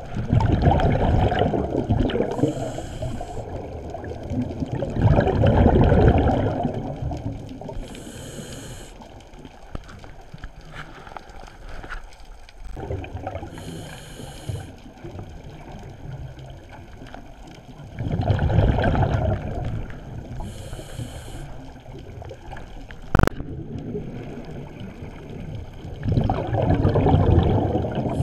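Scuba diver breathing through a regulator underwater: a short hissing inhale every five to seven seconds, and between them a low bubbling rumble of exhaled bubbles. A single sharp click comes about two-thirds of the way through.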